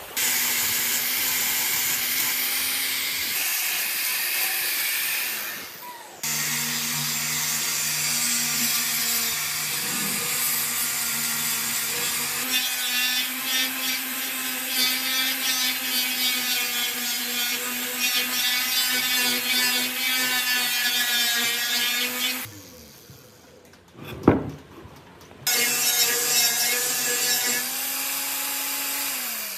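Angle grinder with a sanding disc running and sanding wood: a steady motor whine under the harsh rasp of abrasive on wood. It stops briefly about six seconds in, then again for about three seconds near the end, with one sharp knock during that second pause.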